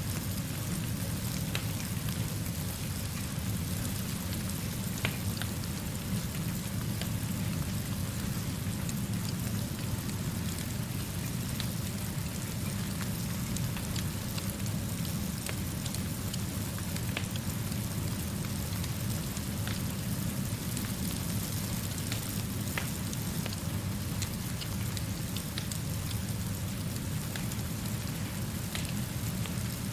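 Steady rainfall with scattered sharp ticks of drops, over a low steady rumble.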